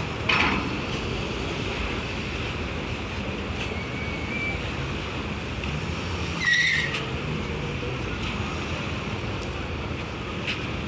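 Steady low rumble of the chain ferry's engines and waiting vehicles idling. Two short, high-pitched squeals break through it, one just after the start and a louder one about six and a half seconds in.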